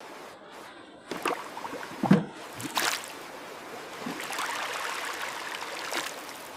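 Steady rushing of running water, like a stream, with a few sharp knocks and clunks over it, the loudest about two seconds in.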